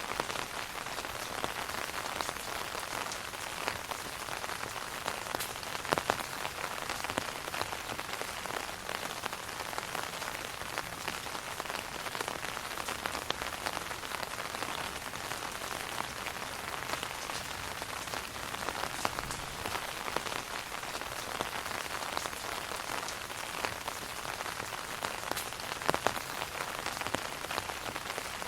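Steady rain falling on an umbrella, a dense even hiss dotted with individual drop hits. A few louder, sharper drops stand out about six seconds in and again near the end.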